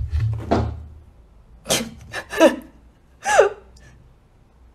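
A thud at the start, then three short vocal calls, the last two falling steeply in pitch.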